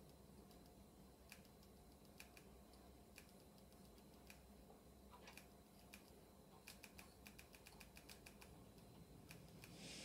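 Near silence with faint clicks of a bass amp's control knobs being turned. The clicks are sparse at first, then come in a quick run toward the end, over a faint low hum.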